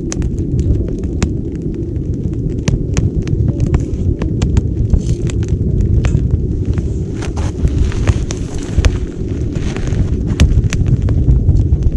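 Wood fire in a small titanium wood stove, crackling with many sharp, irregular pops over a steady low rumble.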